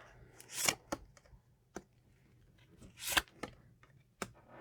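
Tarot cards being handled: two short swishes of cards sliding, with light clicks and taps of cards set down on the table.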